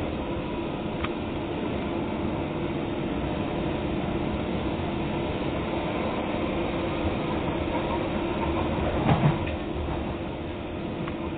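Docklands Light Railway train running, heard from inside the carriage: a steady rumble of wheels on rail with a steady hum, and one brief knock about nine seconds in.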